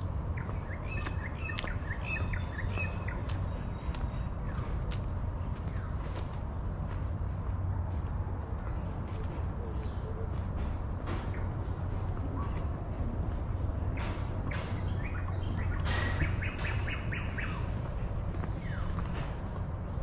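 Tropical forest ambience: insects keep up a steady high drone, and birds call briefly about a second in and again in a quick series near the end. Footsteps tap along underneath.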